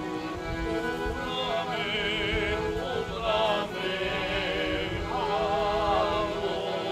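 Men singing a Serbian folk song to accordion accompaniment, the voices wavering with vibrato over the accordion's held chords.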